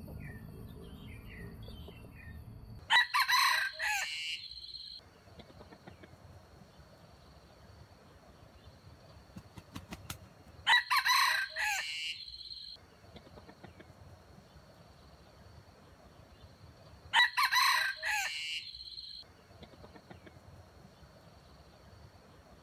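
Junglefowl rooster crowing three times, about seven seconds apart, each crow lasting about two seconds. The three crows are nearly identical, like a repeated call used to lure wild junglefowl to a trap.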